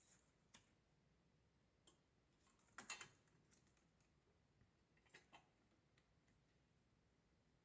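Faint, scattered clicks and clinks of metal parts being handled, with a short cluster of them about three seconds in and a few single ones around it.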